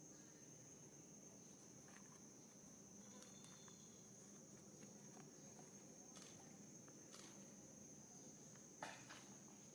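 Near silence: a faint, steady, high-pitched insect chorus of crickets, with a few soft clicks and one brief knock near the end.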